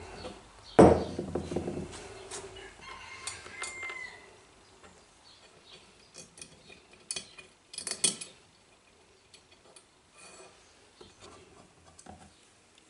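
Steel parts of a small beam-engine base handled on a workbench: a heavy knock about a second in as a steel cylinder is set down, then quieter metal clinks and taps as small steel pivot blocks are laid on the steel plate, with a quick cluster of sharp clicks around eight seconds.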